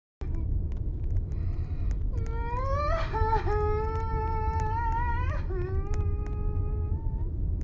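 A brief breathy cry, then a long wailing cry held at a nearly steady pitch for about three seconds with one waver near its middle, then a second held cry of about two seconds. A steady low rumble runs underneath.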